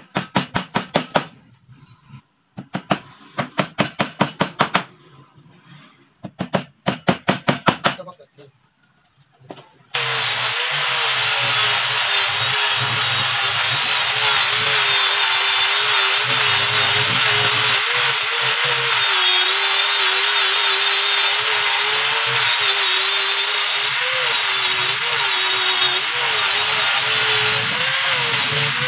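Three bursts of quick hammer taps on a particle-board bed panel. About ten seconds in, an electric power tool starts up and keeps running loudly, its pitch wavering slightly.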